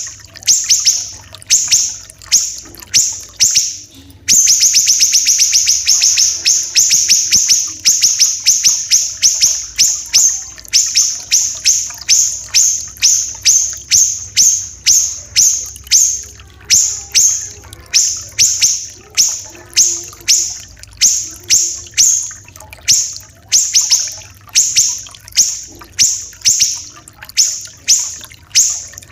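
Siri-siri kecil songbird singing fast series of sharp, high repeated notes in close succession. About four seconds in, the notes run together into a dense, rapid trill that holds for several seconds before breaking back into quick separate phrases.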